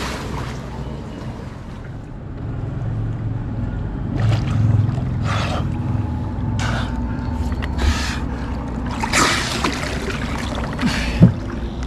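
Boat motor humming steadily, with water splashing and slapping against a small boat several times, and one sharp knock on the hull near the end.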